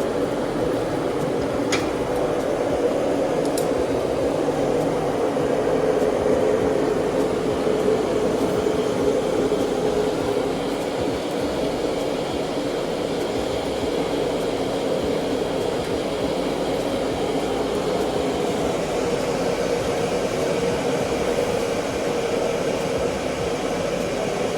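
Gas forge burner running with a steady rushing noise, with two light clicks in the first few seconds.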